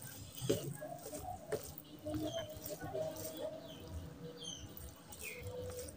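Wet, sticky eating sounds: a bare hand squeezing and mixing rice into oily mutton curry on a plate, with chewing and lip smacks, as a run of small clicks and squelches.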